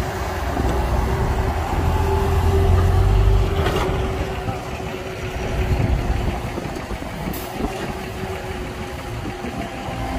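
Heavy diesel earthmoving machinery running steadily: an excavator working and loading a dump truck. The low rumble is heavier for the first three seconds or so and eases after a single sharp knock.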